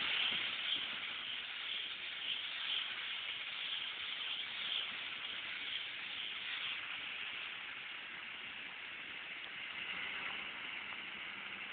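John Deere 6520 tractor and Claas Liner 80 Profil rotary rake working through cut grass: a steady hiss that slowly grows fainter, with a faint engine hum coming in near the end.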